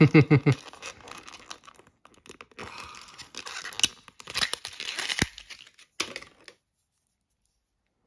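Clear plastic packaging tray crinkling and crackling as an action figure is pulled free of it by hand, with a few sharp snaps of the plastic. It stops about six and a half seconds in.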